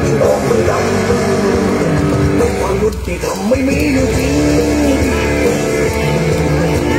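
Music: a song with a singing voice over instruments.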